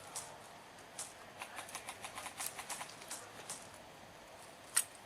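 Airsoft game sounds: a quick run of light, irregular ticks and taps, then one sharp airsoft gun shot near the end.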